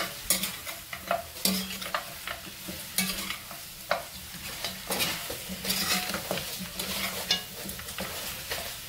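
A metal spoon stirring and scraping curried meat around a large metal pot, with irregular scrapes and knocks against the pot over a steady sizzle as the meat browns.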